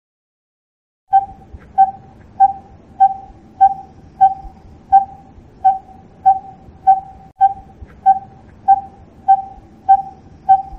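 A bird calling one short, single-pitched note over and over, at about one and a half notes a second, starting about a second in.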